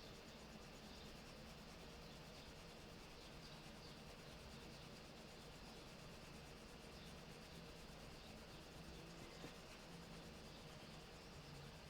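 Near silence with faint, steady rubbing of a drawing pen on paper.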